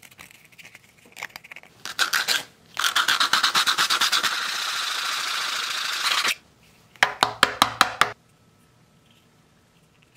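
Sandpaper on a foam sanding block scratching back and forth over the cut plastic edge of a bottle neck. A short bout comes first, then about three seconds of steady rapid rubbing, then a quick run of about six strokes near the end.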